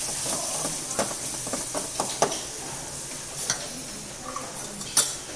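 Ginger-garlic paste sizzling in hot oil in a pan, stirred, with a utensil clicking sharply against the pan several times.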